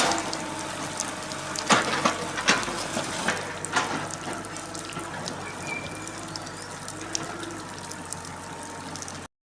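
Water splashing and running as an excavator moves surface water, with several sharp knocks in the first few seconds over a faint steady hum. The sound cuts off suddenly near the end.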